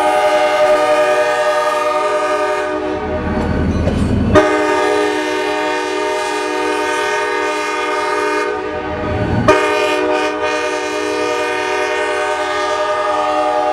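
Locomotive's five-chime K5LA air horn sounding long chord blasts. One blast ends about three seconds in, a second starts sharply about four seconds in and holds for about five seconds, and a third follows a brief break about nine and a half seconds in. The low rumble of the passing train shows between blasts.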